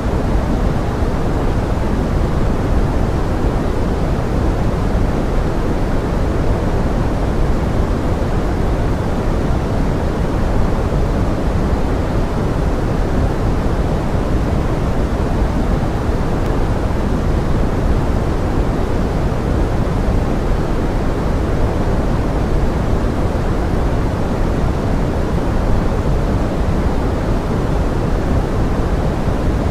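Steady pink noise: an even rushing hiss, heavier in the low end, that runs without any change or break.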